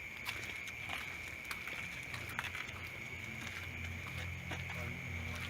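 Steady, high, even chirring of night insects, with scattered sharp clicks over it. A low steady hum comes in about two seconds in and grows louder.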